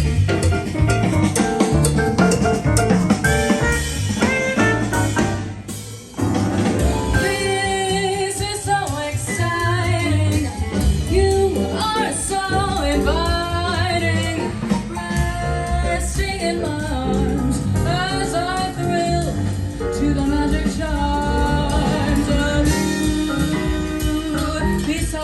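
A song with a drum kit, bass and a sung voice, played over KLH Model 3 hi-fi speakers during a sound demo. About five seconds in the music dips and cuts briefly, then comes back with the singing.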